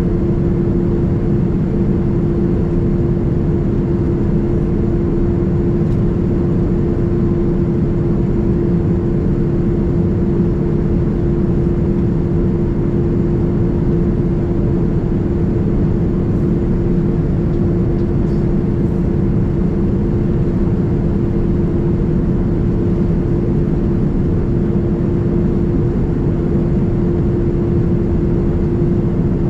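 Steady cabin drone of a Boeing 787-9 Dreamliner heard from a window seat: engine and airflow noise, with a steady low hum running through it.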